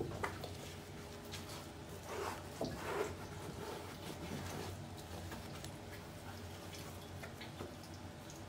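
Bathroom exhaust fan running with a steady low hum, with a few light clicks and rustles about two to three seconds in.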